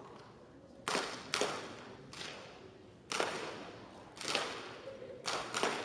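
Daisy Model 499 BB guns firing on a match line: about seven sharp pops from different shooters at irregular intervals, each trailing off in the echo of a large hall.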